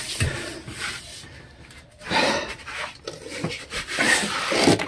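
Rubbing and scraping handling noises in irregular bursts, about two seconds in and again near the end, as a phone is shifted about and a head gasket is set onto a bare engine block.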